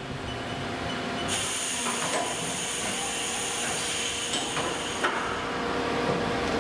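A Haas VM3 vertical machining center running, set up for reaming: a steady mechanical hiss and hum with a faint whine. A higher hiss joins about a second in, and there are a few short clicks.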